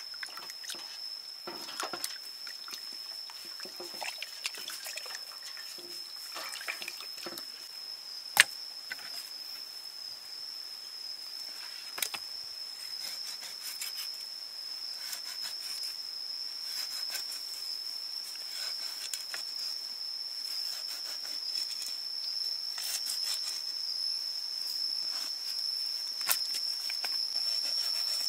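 Water splashing and dripping as a fish is rinsed in a steel tray, then a cleaver scraping and knocking on the fish and a wooden board, with one sharp knock about eight seconds in. A steady high insect drone runs underneath throughout.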